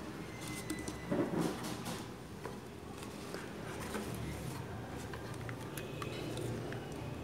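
Cut-down plastic bottles being set down and shifted in a wooden tray: light, irregular knocks and rustles. They cluster between about half a second and two seconds in, then come sparser.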